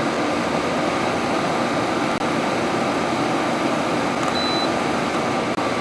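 Frigidaire 70-pint dehumidifier running steadily on its low fan speed, an even rushing fan noise with a faint steady hum. One short high beep sounds about four and a half seconds in.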